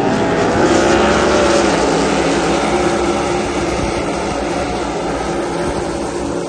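A pack of NASCAR Cup stock cars' V8 engines running together as the field passes through a turn, many engines layered into one loud sound. Their pitches rise over the first couple of seconds as the cars accelerate, then hold steady.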